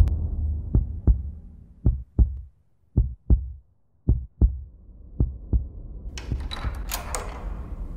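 Heartbeat sound effect: five paired lub-dub thumps, about one pair a second, over a low rumbling drone. About six seconds in, a brief clattering, hissing burst.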